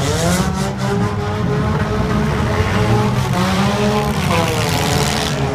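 Several demolition derby car engines running and revving together, their pitches rising and falling over one another above a steady low engine drone.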